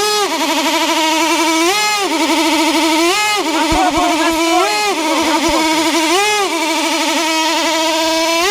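TsSTKAM 2.5 KR glow-plug model aircraft engine with a single-blade propeller and a resonance pipe, running flat out with a loud, steady, high-pitched scream at about 21,000 rpm. Its pitch briefly surges up every one and a half to two seconds. To its owner it seems not to be coming onto the pipe: it is only making 20 to 21 thousand rpm, short of the revs expected.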